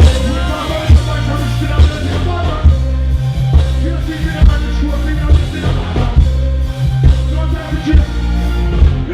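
Reggae/dancehall music with a heavy bass line and a steady beat, a voice singing over it.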